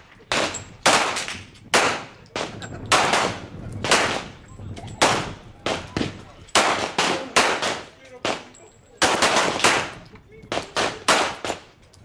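Pistol shots from several shooters firing on an outdoor range: sharp cracks coming irregularly, about two or three a second, each dying away quickly.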